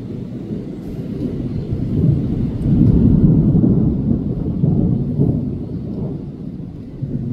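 Long, drawn-out rolling thunder rumbling low and deep, swelling about two seconds in, peaking around three seconds and slowly dying away.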